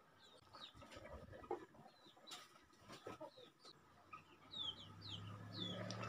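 Birds peeping: many short, falling chirps, faint. A few sharp knocks from a wooden spatula and a glass pan lid being handled. From a little under four seconds in, a low motor hum comes up and grows louder.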